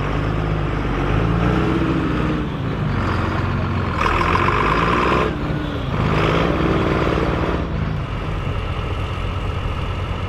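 John Deere 7710's six-cylinder turbo diesel under heavy throttle, its revs rising twice, with a loud rushing hiss about four to five seconds in. It settles to a steadier run near the end.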